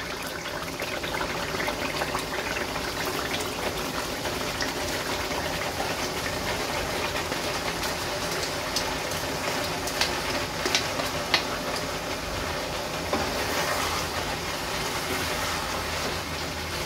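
Chicken curry sizzling steadily in a frying pan, with a few sharp clicks of a wooden spatula against the pan about ten to eleven seconds in, as chopped coriander is stirred in.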